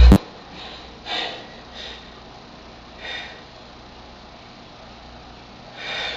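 Loud electronic dance music cuts off abruptly at the very start. Then a person sniffs softly through the nose a few times, short separate puffs a second or more apart.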